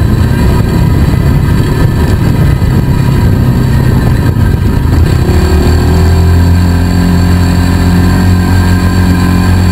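Polaris RZR 170 side-by-side's small single-cylinder four-stroke engine running under way on a dirt trail, heard from on board. Its note is rough and uneven at first, then settles into a steadier, stronger hum about halfway through.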